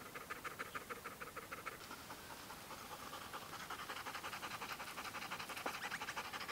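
Golden retriever panting in quick, even breaths, which get faster and louder about halfway through.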